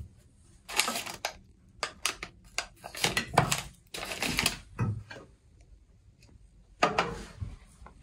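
Irregular clicks, knocks and short rustles of objects being handled in a small room.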